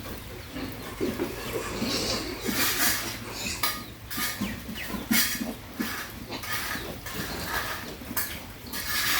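Pig feeding, with short low grunts throughout and several brief noisy bursts at the feed.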